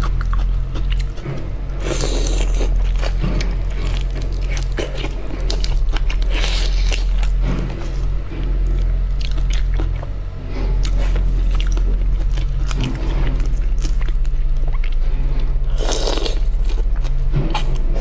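Shells of large marinated shrimp crackling and crunching as they are pulled apart and peeled with gloved hands, with chewing, a few louder crackly bursts standing out. Steady background music plays under it.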